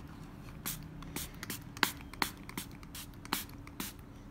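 Rapid short spritzes from a hand spray bottle onto a plastic model, several quick hisses a second.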